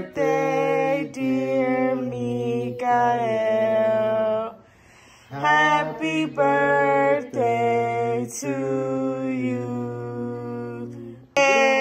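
Slow singing with long held notes that step from pitch to pitch, with a short pause about four and a half seconds in.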